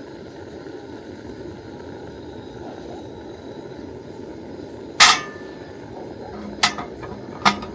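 Wood fire burning in a fire pit: a steady low rushing crackle with three sharp pops, the loudest about five seconds in and two smaller ones near the end.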